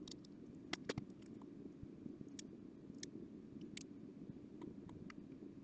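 Faint scattered clicks and light taps from a metal CD changer mechanism being handled and turned over, with two slightly louder clicks about a second in, over a low steady background hum.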